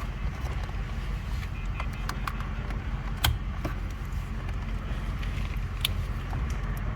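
Scattered small plastic clicks and ticks of wiring-harness connectors being unlatched and worked loose behind a car's dashboard radio bezel, over a steady low rumble.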